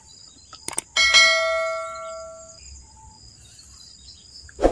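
A single bell-like metallic ring, struck once about a second in after two light clicks, then fading away over about a second and a half. A steady high drone of insects runs underneath.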